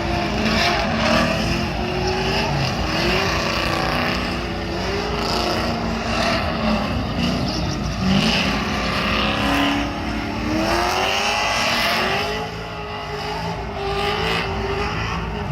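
Ford Mustang 2.3 L four-cylinder engine running and being revved, its pitch rising and falling, with steady road and drivetrain noise.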